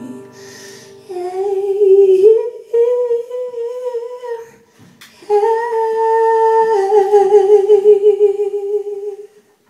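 Woman's voice humming the closing melody unaccompanied, held notes with vibrato in three long phrases, the last the longest, ending shortly before the close.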